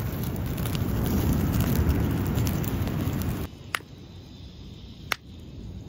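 Campfire crackling under a loud, steady low rumble, which cuts off about three and a half seconds in. Then two sharp clicks, a hammerstone striking a stone cobble core to knock off sharp flakes (Oldowan-style knapping).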